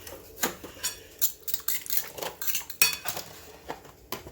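A metal utensil clinking and scraping against a bowl in a quick, irregular run of taps while ingredients are mixed; the sharpest clink comes near the end.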